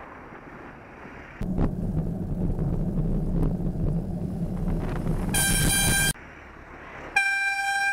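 A MAN box truck passing very close: a loud low engine and road rumble starts suddenly about a second and a half in. Near its end comes a loud, high-pitched horn blast under a second long, and a second horn blast of just over a second follows after a short gap.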